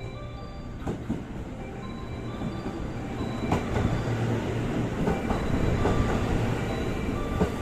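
Sunrise sleeper express (285 series electric train) pulling into the platform. It grows steadily louder, with wheels clicking over the rail joints.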